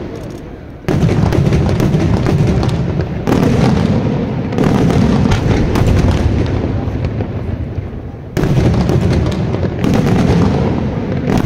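Daytime fireworks shells bursting overhead in a dense barrage of bangs. Fresh volleys break in sharply about a second in, at about three and a half and four and a half seconds, and again around eight and ten seconds.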